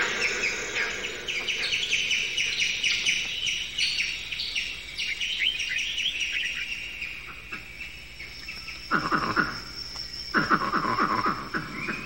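Many birds chirping in quick, repeated high notes that thin out over several seconds. Two-thirds of the way in come two louder bursts of lower, pitched animal calls.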